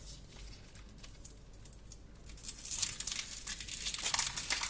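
Chocolate wrappers crinkling and tearing as individually wrapped chocolates are unwrapped by hand, faint at first and turning into louder, busy crackling about halfway through.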